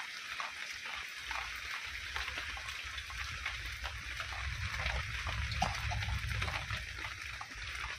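Heavy rain falling steadily, with many close drips ticking through it. A low rumble builds about two seconds in and fades near the end.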